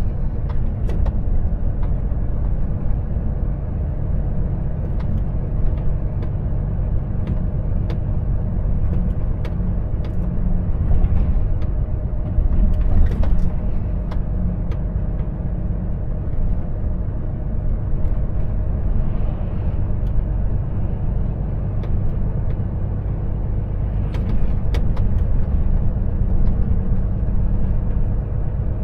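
Volvo FH truck driving along, its engine and the road noise making a steady low rumble, with a few faint clicks here and there.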